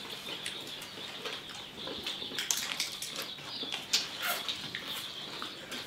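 Dinner-table sounds without talk: scattered small clicks and taps of chopsticks, cups and crayfish shells being peeled.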